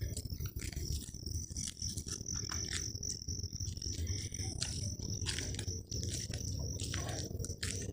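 Crickets keeping up a steady high trill, with many short irregular clicks over it and a low rumble underneath.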